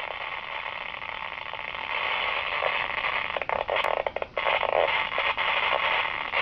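Radio static: a steady hiss squeezed into a narrow, tinny band, with crackles and brief dropouts around the middle and one sharp click.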